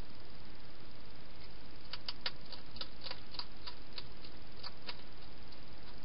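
Wild hedgehog chewing food from a bowl: a quick, irregular run of about a dozen crisp clicks lasting a few seconds, starting about two seconds in, over a steady background hiss.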